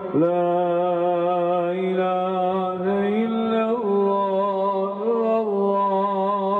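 A man's voice chanting a slow, melismatic Islamic recitation, with long held notes that step up and down in pitch.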